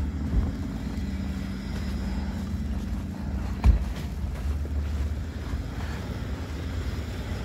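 Steady low outdoor rumble with a faint steady hum under it, and a single thump about three and a half seconds in.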